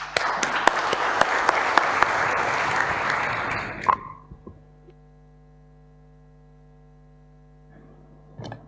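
Audience applauding, a dense patter of claps lasting about four seconds and then dying away, leaving only a steady faint hum.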